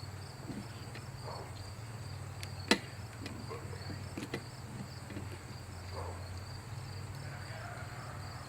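Insects chirping in a steady, evenly pulsing high pitch over a low steady hum, with a few faint knocks and one sharp click about three seconds in.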